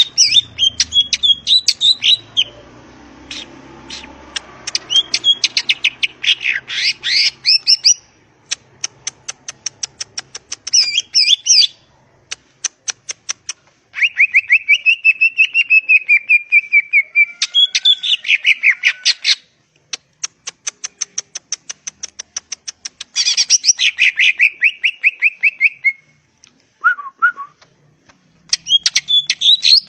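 Greater green leafbird (cucak ijo) singing a varied song: bursts of fast chattering notes, quick runs of ticks, and a long steady trill about halfway through, broken by short pauses.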